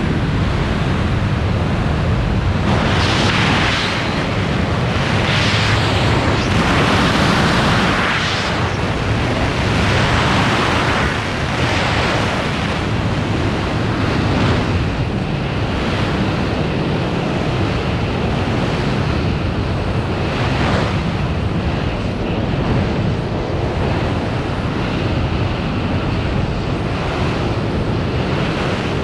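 Freefall wind rushing over the camera's microphone, loud and steady. It swells and eases several times over the first dozen seconds, then settles into a more even rush.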